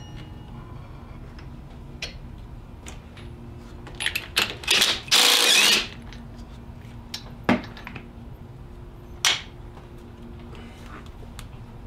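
Cordless impact driver hammering at a fastener on the alternator, in a few short bursts and then one run of just under a second. Two sharp knocks follow, about two seconds apart.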